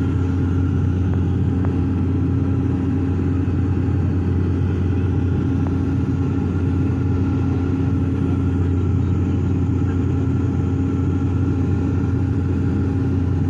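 Propeller aircraft's engines heard from inside the cabin in flight: a steady drone made of a low hum with a few steady tones above it, unchanging throughout.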